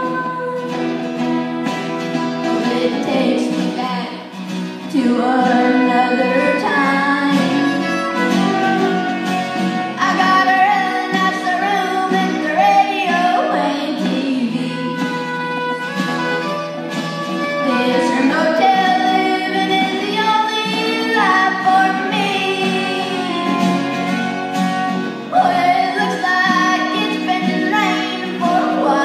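Live traditional country music: a boy singing lead over two strummed acoustic guitars and a fiddle.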